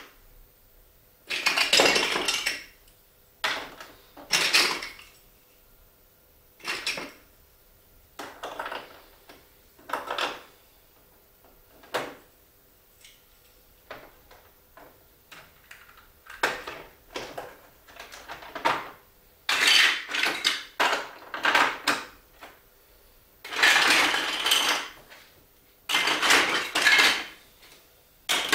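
Hard plastic Duplo blocks of a marble run clattering and clicking as they are handled, in more than a dozen short bursts with quiet gaps between.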